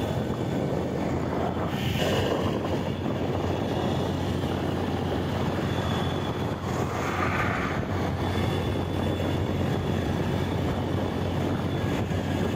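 Motorcycle engine running steadily while riding, with road and wind noise on the microphone.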